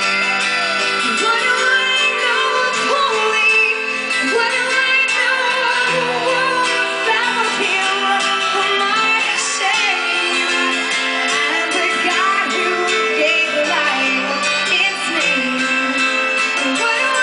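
Live band playing a song, with a woman singing lead over guitar and drums.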